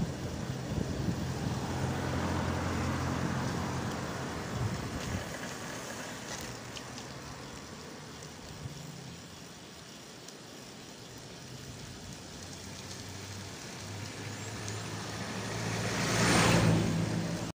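Road traffic on a street: a vehicle engine hums at the start and fades away, then a Toyota pickup truck approaches and passes close near the end, its engine and tyre noise at their loudest as it goes by.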